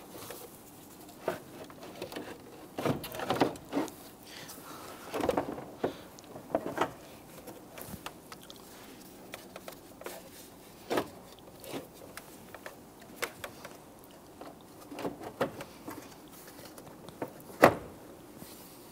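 Plastic radiator cooling fan assembly being worked down into place between the radiator, wiring harness and hose, making irregular scraping, rubbing and knocking sounds with scattered clicks. A single sharp knock near the end is the loudest.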